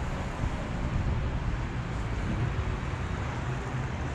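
Steady low rumble of a BMX rolling over stone-textured paving, its tyres running on the rough surface with air rushing past the camera.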